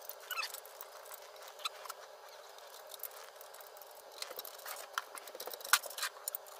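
Small clicks and light metallic taps as a FiTech throttle body, its gasket and bolts are handled and fitted onto an intake manifold by hand, with one sharper click nearly six seconds in. The sound is thin, with no low end.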